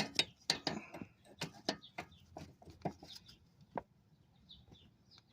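Irregular sharp metallic clicks and knocks of a stubby 18 mm wrench working a power steering line fitting, coming quickly at first and thinning out after about four seconds.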